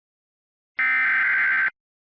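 EAS SAME header: one burst of digital data tones lasting just under a second, starting about a second in and cutting off abruptly. It is the encoded alert header announcing a tornado warning (event code TOR).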